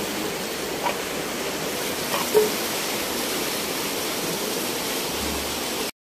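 Turbulent water of the Swat River rushing: a steady, even hiss of churning current, cut off suddenly just before the end.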